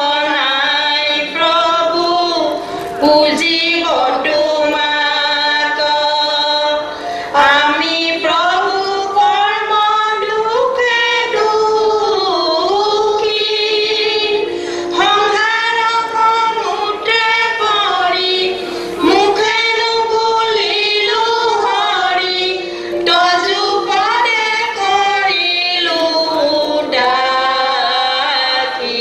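A high voice singing a song with held, gliding notes over musical accompaniment.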